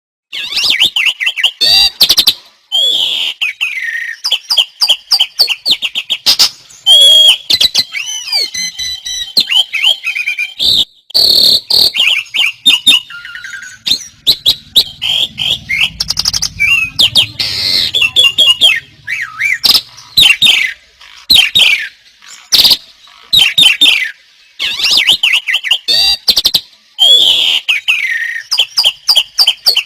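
Several songbirds singing loudly at the same time in full song, their chirps, rapid trills and whistled glides overlapping almost without a break.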